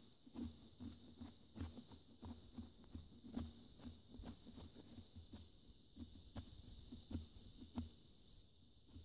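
Gerber Bear Grylls Ultimate survival knife shaving curls off a wooden stick for a feather stick: faint, short scraping strokes of the blade through the wood, roughly one a second, over a steady faint high hum.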